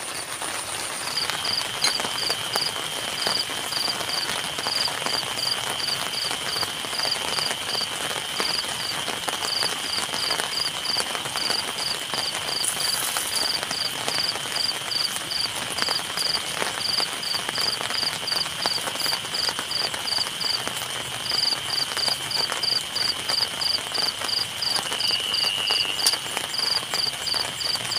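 Insects calling: one chirps in an even high-pitched pulse, about three chirps a second with a few short breaks, over another insect's steady high trill that sets in about a second in.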